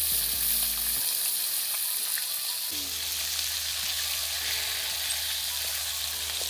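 Fish pieces frying in hot oil in an iron wok: a steady sizzle, with a metal spatula turning and scraping them now and then.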